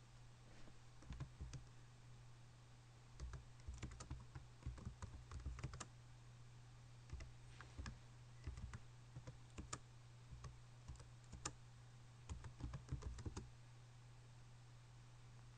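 Faint typing on a computer keyboard: keys clicking in several short, quick runs with pauses between, over a steady low hum.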